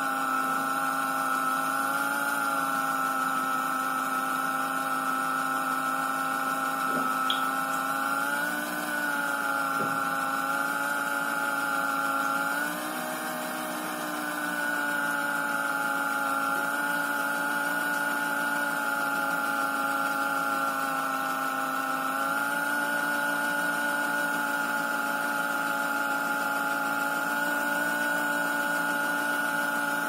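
Miele washing machine's motor whining steadily while it tries to spin a drum full of water and suds, its pitch wavering and sagging a few times. The excess foam is holding the drum back so the spin cannot get going.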